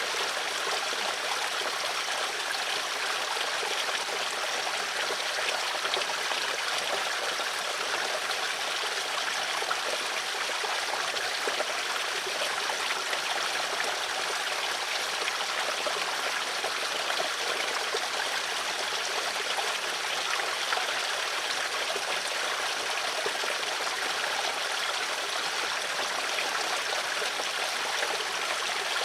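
Water flowing in a stream, a steady even rush with no breaks and little deep rumble.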